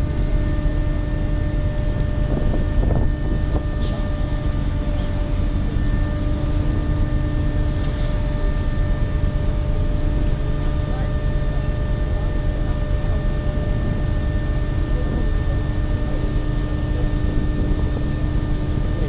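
Ferry's engines and machinery running with a steady hum and a few held tones, under a low rumble of wind on the microphone.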